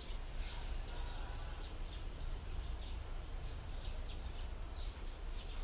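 Birds chirping here and there in short, high calls over a steady low rumble.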